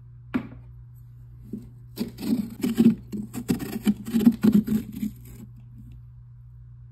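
Metal spoon scraping the stringy inner flesh from the wall of a hollowed pumpkin: a quick, irregular run of rough scrapes lasting about three seconds, with a single knock shortly before.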